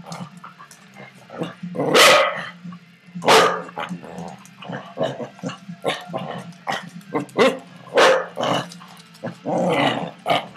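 Puppies barking during rough play, about half a dozen loud barks, the longest about two seconds in and near the end, with short clicks and knocks of paws and bodies on a hard floor between them.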